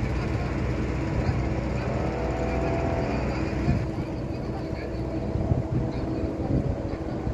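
Steady low hum and rumble of ship's machinery running, with faint voices in the background.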